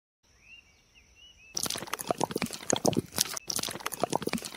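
Wet cement mix pouring from the tipped drum of a miniature homemade cement mixer into a small steel bowl: a dense run of wet splats, plops and drips starting about a second and a half in.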